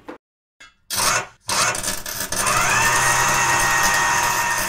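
Workshop-tool sound effects: a brief rasping, sawing-like stroke, then a power drill whining up to speed and running steadily.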